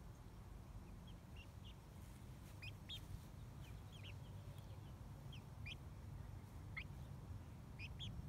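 Chicken peeping softly: about a dozen short, thin, high chirps scattered through, over a faint steady low rumble.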